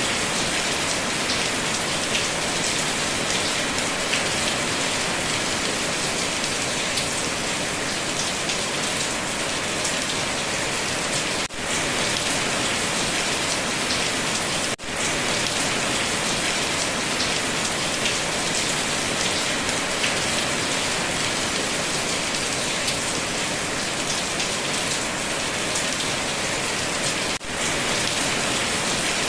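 Steady, dense rainfall pattering on surfaces. It cuts out for an instant three times, like the joins in a looped recording.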